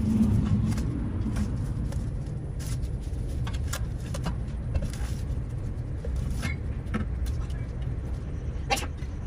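Snaps, cracks and scrapes of climbing vines being pulled and raked off a cinderblock wall with a hand tool, scattered irregularly with a louder snap near the end, over a steady low rumble.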